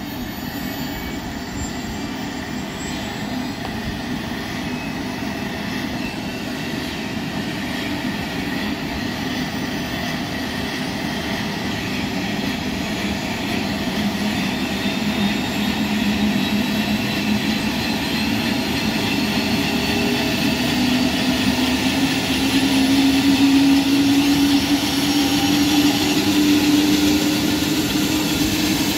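Airbus H125 helicopter running up on the ground: a steady turbine whine and rotor noise that rise gradually in pitch and grow louder as the rotor speeds up before take-off.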